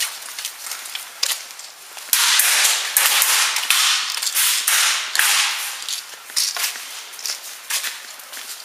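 Handling noise from a handheld camera carried on the move: dense scraping and rubbing with sharp clicks and knocks, heaviest through the middle.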